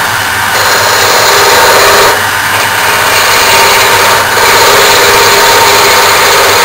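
Turning tool cutting a small wooden handle blank spinning on a JET wood lathe, over the steady drone of a dust extractor. The cutting noise starts about half a second in and breaks off briefly twice as the tool is lifted from the wood.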